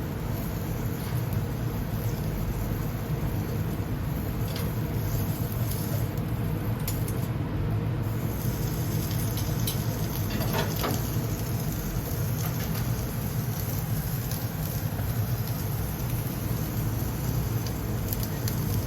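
Hamburger patties grilling over a gas grill with charcoal: light crackling and sizzling over a steady low rumble, with a few sharper crackles near the middle.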